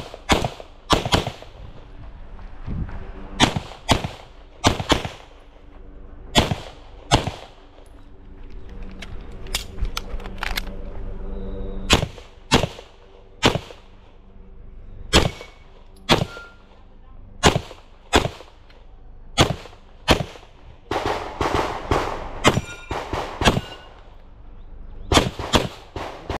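9mm CZ Shadow pistol fired rapidly, about thirty shots in quick pairs and short strings, with a lull of a few seconds about a third of the way through.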